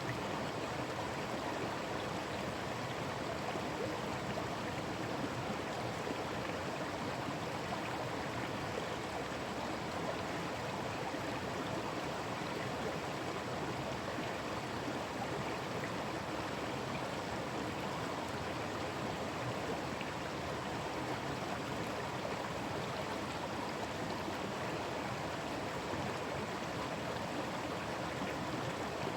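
Forest stream running over rocks: a steady, even rush and babble of flowing water.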